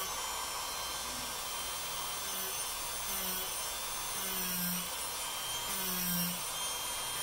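Handheld rotary tool spinning a sanding drum against EVA foam, grinding a bevel into the edge: a steady high whine, with a lower tone that comes and goes in short spells from about two seconds in.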